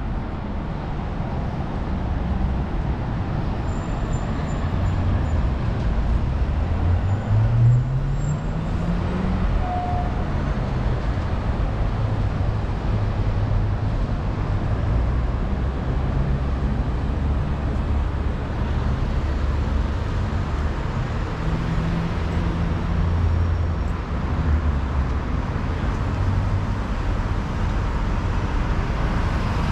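Busy city street traffic: cars and buses running past in a steady rumble. About seven seconds in, one vehicle's engine rises in pitch as it accelerates away.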